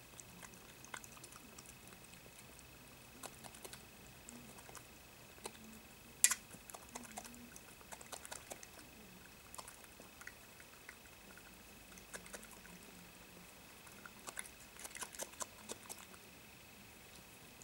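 European badger feeding from a dish: a scattered run of faint crunching, clicking chewing sounds, with one sharper click about six seconds in and a busier spell near the end.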